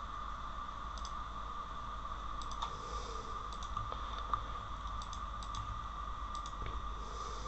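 Computer keyboard keystrokes and clicks, sparse and in small clusters, over a steady background hum.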